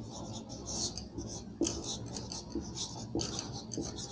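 A marker pen writing on a whiteboard: a series of short scratchy strokes with a few light taps as letters are formed.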